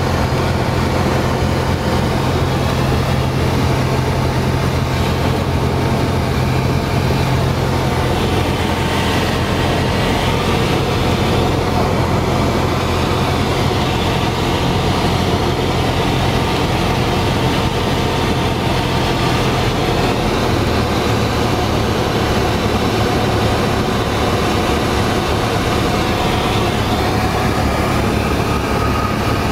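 Cessna 172's piston engine and propeller droning steadily. About two-thirds of the way through, the engine note steps down to a lower pitch.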